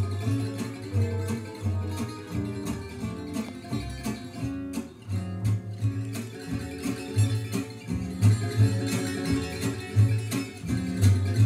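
Guitar music with plucked notes over a bass line, played back from cassette on a Nakamichi DR-2 deck.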